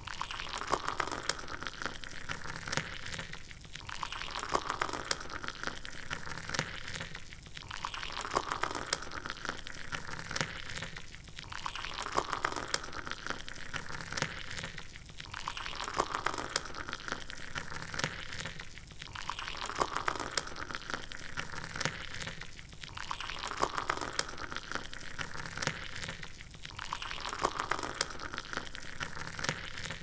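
Water from a homemade DC-motor pump's outlet tube splashing onto bare soil, a continuous hissing spatter that swells and dips about every four seconds.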